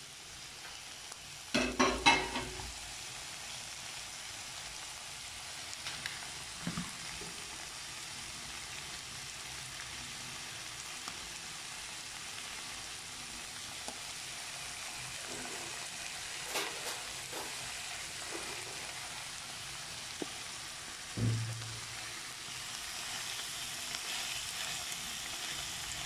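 Coiled sausages frying in oil on a bed of sliced onions, a steady sizzle as they start to give off their juices. A cluster of knocks about two seconds in is the loudest sound, with one more thump past twenty seconds, and the sizzle grows a little louder near the end.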